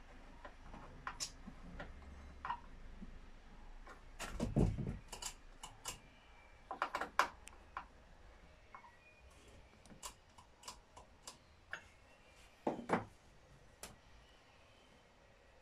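Scattered clicks, ticks and taps of a hand tool working on a chainsaw's bar mount, with a louder knock and clatter about four and a half seconds in.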